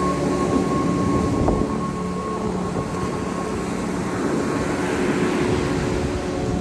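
Strong wind buffeting the microphone on a beach, a low rumbling rush with surf hissing louder about four to six seconds in, over a steady hum of several held tones.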